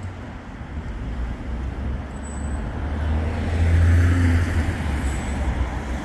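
Road traffic passing on a wet road: a low rumble swells to its loudest about four seconds in, with tyre hiss rising after it.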